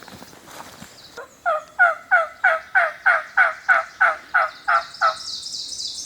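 A run of about a dozen turkey yelps, evenly spaced at about three a second, each note falling in pitch. A high, rapid bird trill joins near the end.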